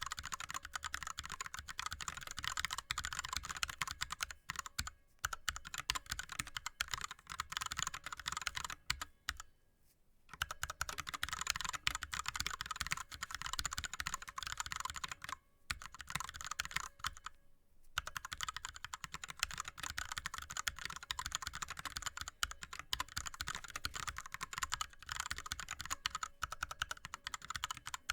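Fast typing on an ErgoDox split keyboard with Cherry MX Red linear switches and blank DSA keycaps: a rapid, continuous patter of keystrokes, with short pauses about ten and eighteen seconds in.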